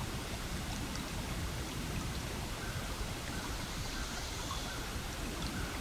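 Steady rain-like hiss of background noise, with a few faint ticks.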